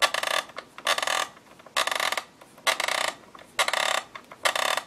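Time-set knob of a Panasonic RC-6530 flip clock radio being turned by hand in short twists, about one a second. Each twist gives a brief burst of rapid mechanical clicking, six in all.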